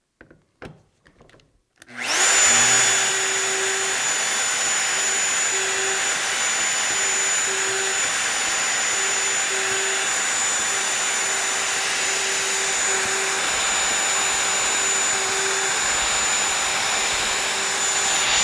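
A few faint clicks, then a Festool plunge router starts about two seconds in and runs steadily, with a dust extractor running on its hose, as it is plunged hole after hole through the template to bore 5 mm shelf-pin holes.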